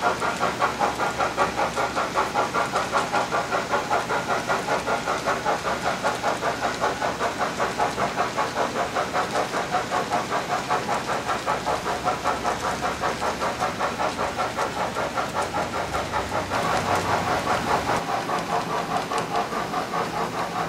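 Model steam locomotive sound of an HO-scale Trix H6 Mikado: a steady rhythmic chuffing at about four beats a second as the train runs at speed.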